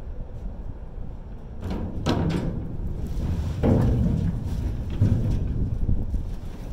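Scrap being rummaged through in a dumpster: several knocks and clatters of metal and debris, the loudest a little before four seconds in, over a low rumble.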